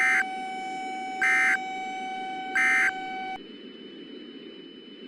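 Emergency Alert System end-of-message signal: three short, screechy digital data bursts about a second and a third apart, marking the end of the alert. Under them runs a steady drone of several held tones and low noise, which cuts off about three and a half seconds in and leaves a fainter hiss with a thin high tone.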